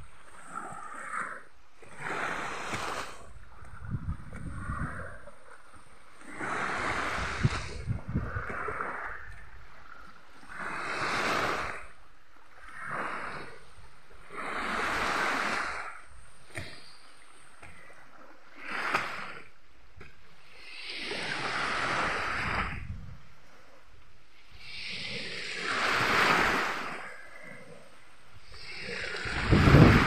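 Small waves breaking and washing up a sandy beach, each wash swelling and fading every few seconds.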